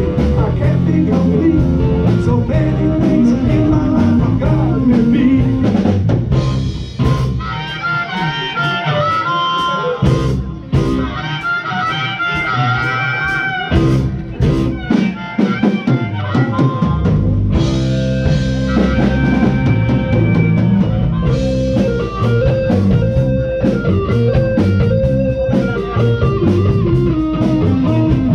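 Live blues band playing an instrumental passage with electric guitar, bass and drums. About six seconds in, the bass and drums drop back and a high lead line carries the music alone for about ten seconds, then the full band comes back in.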